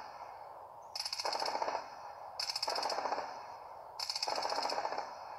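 Three short bursts of rapid automatic cannon fire from an air-defence gun turret, each lasting under a second and coming about a second and a half apart. The sound is heard through a screen's speaker and picked up again by a phone.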